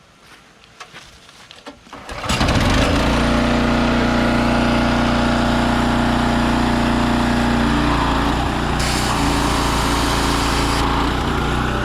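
A pressure washer's Honda GX390 single-cylinder engine starts about two seconds in and runs steadily. A hiss joins for about two seconds near the end.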